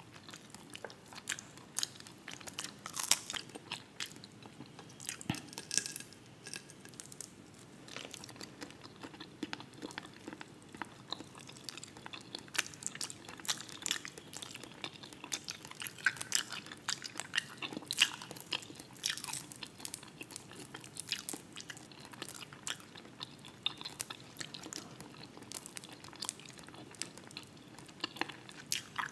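Close-miked ASMR eating sounds: chewing and crunching on fried croaker fish, with many irregular wet mouth clicks.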